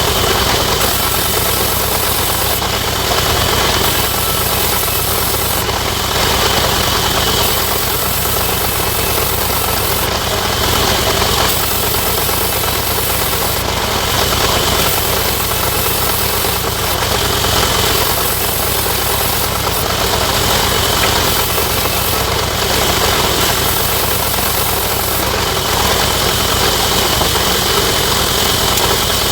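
Sawmill machinery running steadily with a loud, continuous mechanical drone.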